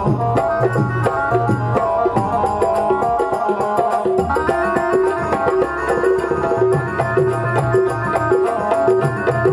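Instrumental interlude of a Rajasthani folk devotional song: a keyboard plays a melody of held notes over a fast, steady hand-drum rhythm, the melody moving higher about four seconds in.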